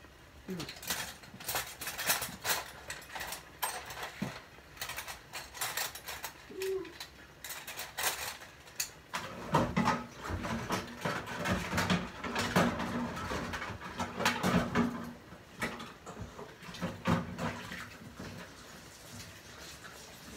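Kitchen clatter at the stove as ramen noodles cook: many small clicks and knocks of pots, dishes and utensils. A low sound comes and goes through the second half.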